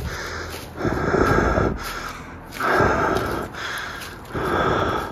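Heavy, slow breathing: a loud breath about every two seconds, with softer breaths between them.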